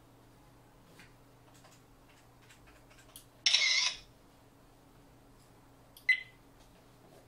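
Faint button clicks from a digital microscope camera, then a loud half-second electronic shutter sound about three and a half seconds in as a picture is captured. A short, sharp beep follows about six seconds in.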